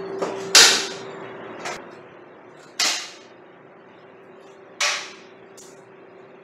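Staple gun firing three sharp snaps about two seconds apart, tacking down the low-voltage wire for a garage door opener's wall console. There are a couple of lighter clicks in between, and a steady faint hum underneath.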